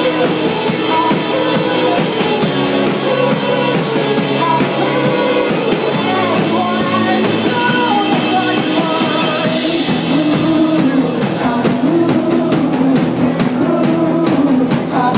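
Indie rock band playing live: electric guitars and a drum kit, played loud and steady.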